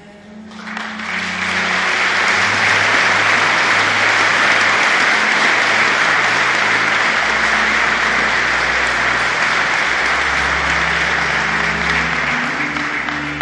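A large audience applauding: the clapping swells up within the first two seconds, holds steady, and dies away near the end.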